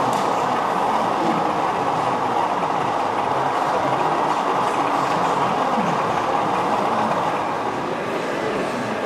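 O gauge model train running along the layout's track, a steady rolling rumble of wheels on rail.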